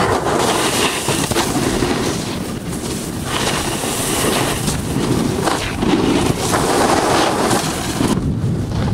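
Loud wind noise on the microphone, a dense rushing that swells and dips without pause.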